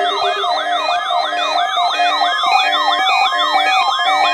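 Several electronic alert sirens sounding at once, as weather radio receivers alarm on a NOAA Weather Radio required weekly test. Each repeats an up-and-down warble about three times a second, overlapping with steady electronic beeping.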